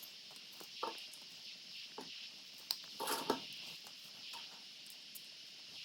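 Scattered light clicks and knocks of small motorcycle suspension-linkage parts being handled and pressed back in during greasing, loudest in a cluster about three seconds in, over a steady high hiss.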